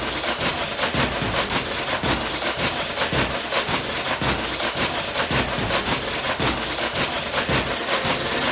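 A rapid, continuous rhythm of sharp knocks, several a second, at an even level.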